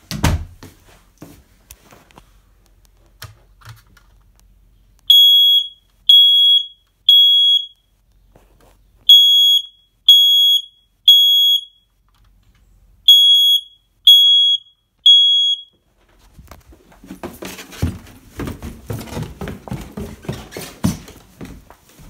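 Smoke alarm sounding its test after its test button is pressed: three groups of three loud, high-pitched beeps, each about half a second long, in the temporal-three fire-alarm pattern. Footsteps and rustling follow near the end.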